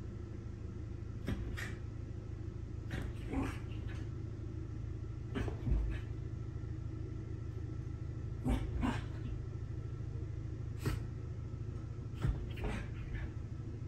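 Small dog giving short, gruff play growls and grunts while wrestling with a cat, a dozen or so brief sounds spread through, over a steady low hum.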